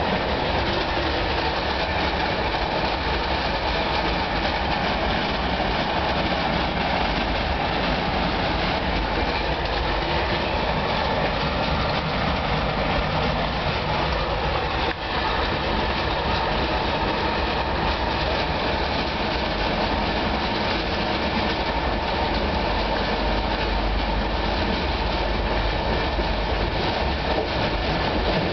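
Cab interior noise of a 4-VEP (Class 423) electric multiple unit running at speed: a steady rumble and rattle of wheels on the track, with a brief drop in level about halfway through.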